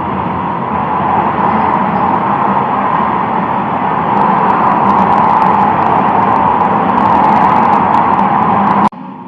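Steady, loud rushing noise of a road vehicle, growing slightly louder, that cuts off abruptly near the end.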